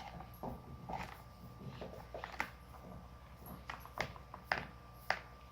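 Scattered small clicks and light knocks, about eight in all, from a flashlight and its parts being handled as a battery and the electronic tail-cap switch are fitted.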